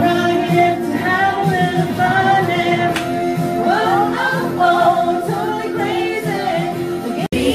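Upbeat pop music with singing, playing without a break for dancing, with a brief dropout near the end.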